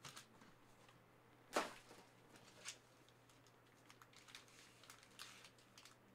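Faint clicks and light rustling of Panini Prizm trading cards being handled, with one sharper tap about one and a half seconds in and a smaller one a second later.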